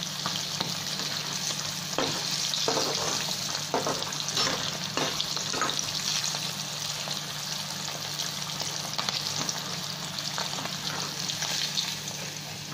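Batter-coated mandeli fish deep-frying in hot oil: a steady sizzle, the fish fried golden and crisp. Between about two and six seconds in there are several sharp clicks and scrapes of a steel slotted spoon against the pan as the fish are turned and lifted.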